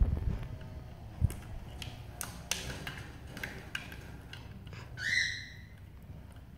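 Black-capped lory working a clear plastic foraging tumbler: a couple of low knocks, then scratchy rustling and clicking as it pecks and pulls at the toy. About five seconds in, the lory gives one short rising squawk.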